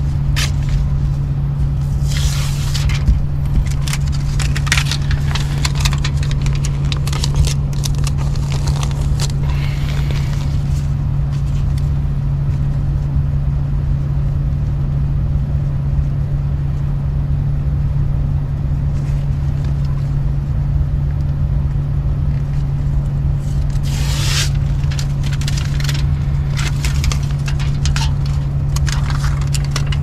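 Crinkling and scraping of foil-faced duct insulation and foil tape being handled while patching leaky flex duct at an air handler, in scattered crackly bursts during the first ten seconds and again from about 24 seconds, over a steady low hum.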